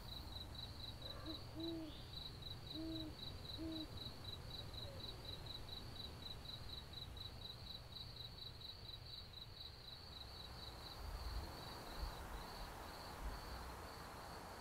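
Cricket chirping steadily at a high pitch, about four or five chirps a second, fading out near the end. There are three or four short, low hoots about one to four seconds in, and a soft hiss rises over the last few seconds.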